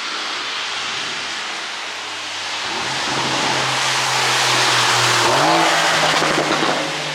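Porsche 911 Carrera 4S twin-turbo flat-six through an exhaust with its flaps held fully open by an ECU tune. A steady rushing noise gives way, about three seconds in, to a louder engine note that steps up in pitch, then crackles unevenly before dropping back near the end.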